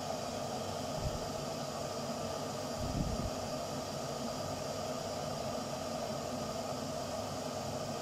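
Electric kettle heating water with Bockwurst sausages inside, a steady hiss as the water gets hot but is not yet at the boil. Two low dull knocks come about a second in and about three seconds in.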